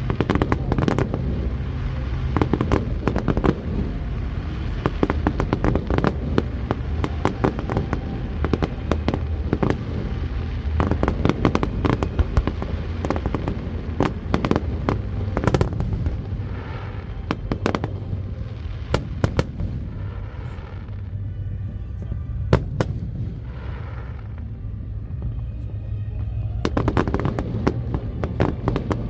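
Professional fireworks display: a dense barrage of shells bursting with rapid sharp bangs and crackle, many per second, easing a little about two-thirds through with a few separate louder bangs before picking up again near the end.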